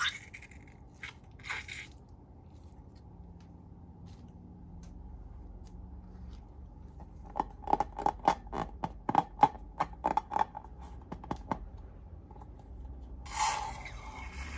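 Slime being worked by hand: a quick run of sharp, sticky clicks and pops, about five a second for some four seconds, after a few scattered clicks. A scraping rustle comes in near the end.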